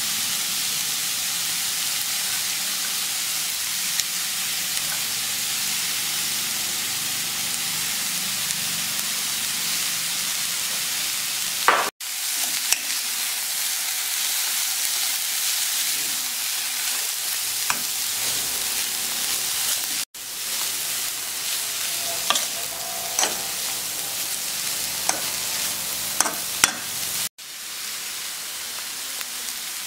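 Shredded cabbage, chicken and vegetables sizzling in a hot steel pan while being stir-fried, with a steady hiss and scattered clicks and scrapes of a metal spoon against the pan. The sound breaks off abruptly three times and picks up again at once.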